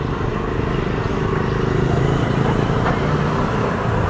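Street traffic: a motor vehicle engine running steadily with road noise, growing a little louder about halfway through.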